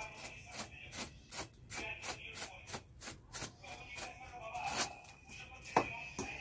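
Plastic bag crinkling and rustling in short, irregular scrunches as gram flour is shaken out of it into a steel bowl, with one sharper stroke near the end.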